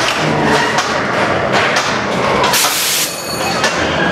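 Ghost train ride car rattling and clattering along its track, with many sharp knocks and a short loud hiss about two and a half seconds in.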